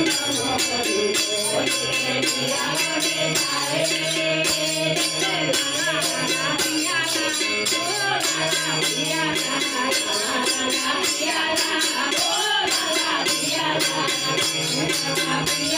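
A group of women singing a Dol Purnima song together, a lead voice on a microphone with the others joining in, to a harmonium and a steady beat of hand-clapping.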